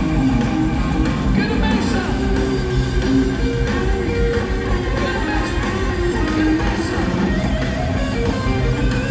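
Rock band playing, with electric guitar prominent in a steady, full mix.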